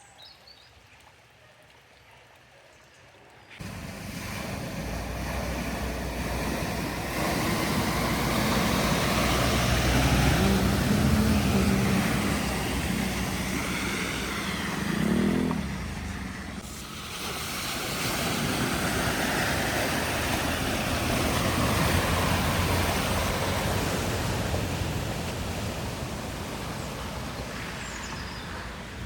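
Vehicles driving through deep floodwater: a continuous rush and splash of water with engine rumble underneath. It sets in suddenly about three and a half seconds in and swells twice.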